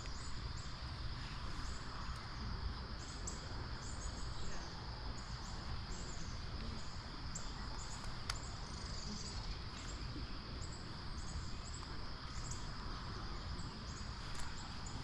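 Insects chirping: short, high chirps repeating a couple of times a second, over a steady outdoor background hiss.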